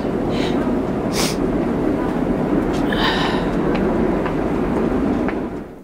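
City street traffic: a steady rumble of passing vehicles with a few short hisses. It cuts off suddenly near the end.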